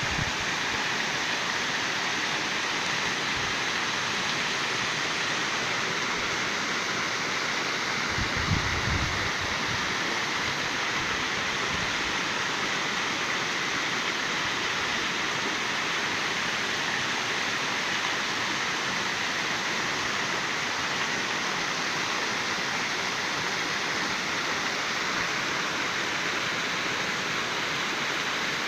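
Bigar waterfall's water falling and splashing: a steady, even rush of water.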